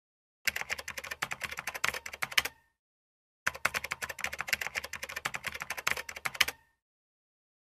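Typewriter keys clacking in quick succession, about eight to ten strikes a second, in two runs of about two to three seconds each with a pause of about a second between them.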